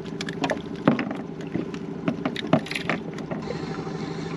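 Clicks and knocks of a fish and fishing tackle being handled in an inflatable boat, with sharper thumps about a second and two and a half seconds in, over a steady low hum.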